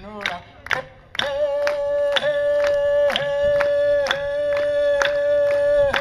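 Aboriginal welcome song: a singer holds one long note from about a second in, over sharp, steady beats about twice a second.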